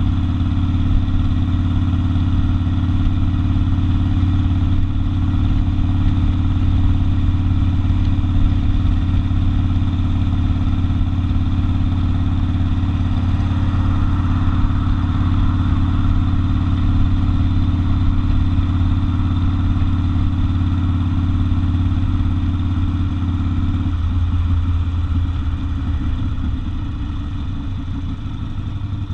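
Harley-Davidson XL 1200 Custom Sportster's air-cooled V-twin engine running at a steady, deep note. About three-quarters of the way through, the note turns rougher and a little quieter.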